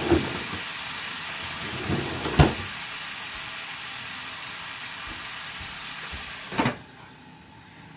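Vegetables sizzling steadily in a cast iron skillet, with a sharp knock about two and a half seconds in. Near the end a lid clatters onto the pan and the sizzle drops away sharply.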